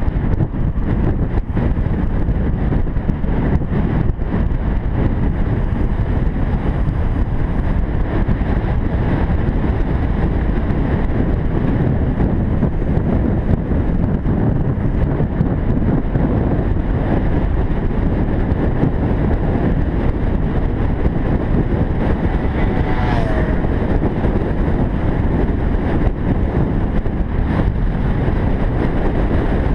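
Wind noise from fast downhill riding buffets the microphone in a steady, loud low rumble. A brief squeal is heard about two-thirds of the way through.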